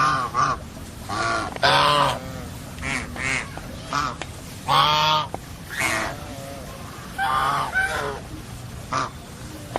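Domestic geese honking: a run of short, loud honks, some bending in pitch, repeated every half second to a second.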